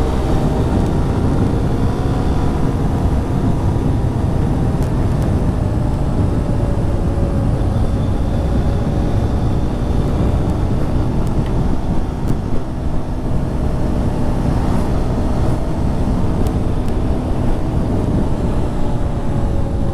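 Suzuki GSX Bandit motorcycle engine running at a steady cruise, its note holding nearly even, under a heavy low rumble of wind and road noise on the riding camera's microphone.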